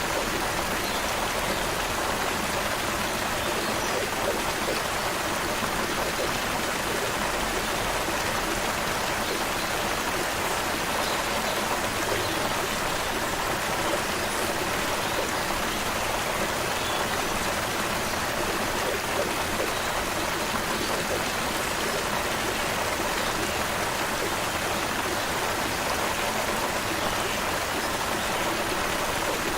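Creek water running steadily, an even rushing and babbling with no breaks.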